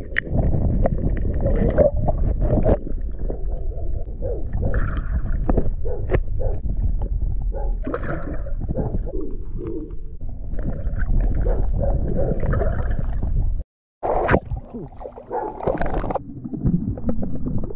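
Underwater camera picking up gurgling water and splashing as a hooked peacock bass thrashes on the line, with a low rumble of water against the housing. The sound cuts out briefly near the end, then comes back with the fish splashing at the surface as it is lifted out.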